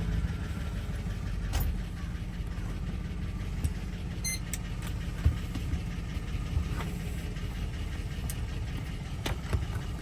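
Engine idling steadily, with a few small clicks and a brief high electronic beep about four seconds in.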